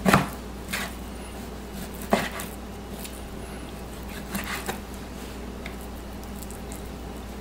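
Chef's knife slicing raw chicken breast into thin strips, the blade knocking on the cutting board a few times at uneven intervals. The strongest knocks come right at the start and about two seconds in, with fainter ones after.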